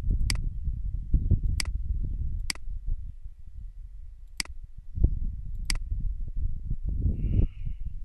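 Five sharp computer mouse clicks at irregular intervals, over an uneven low rumbling noise.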